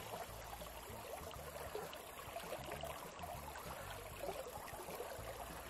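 Faint running water of a small river, a low steady gurgle and trickle.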